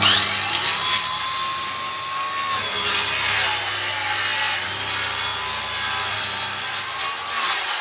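A power saw cutting steadily through wood, with an even motor hum beneath the cutting noise.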